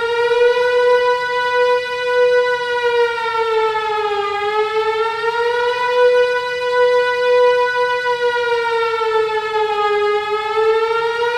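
A siren-like wail: one sustained, buzzy tone that sags in pitch and climbs back up slowly, about every six seconds.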